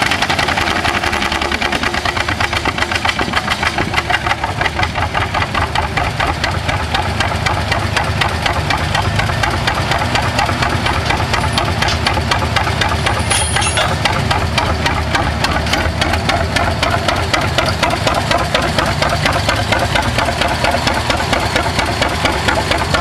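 John Deere G tractor's two-cylinder engine running steadily, each firing beat distinct in an even rhythm.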